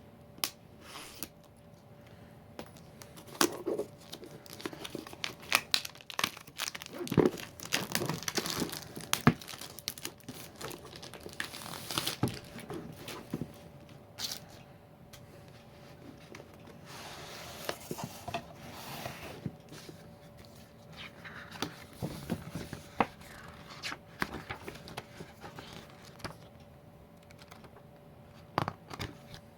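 Plastic packaging wrap being torn and crinkled off a trading-card box, with irregular rustles and clicks of the packaging being handled. A faint steady hum sits underneath.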